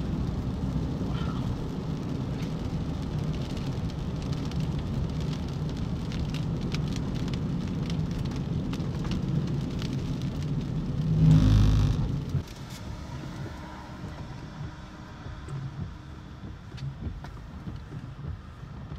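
Steady low rumble of a vehicle with scattered rain ticks, swelling to a loud whoosh about eleven seconds in, then dropping to a quieter rumble.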